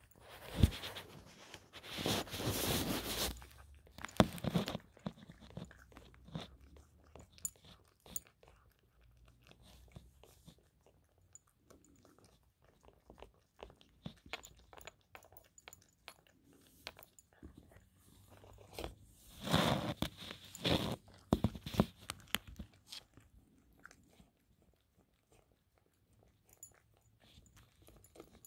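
A Maine Coon cat chewing and crunching breaded fried chicken, with small crunches throughout and louder stretches about two seconds in and again about twenty seconds in.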